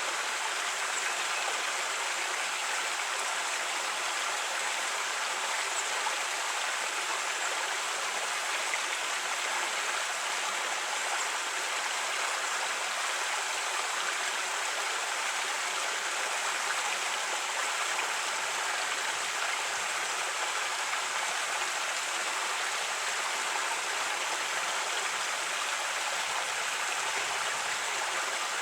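Creek water running steadily over rocks, an even rushing babble.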